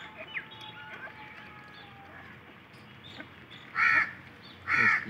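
Two loud, harsh, caw-like bird calls in the second half, over faint chirps and short whistles of small birds.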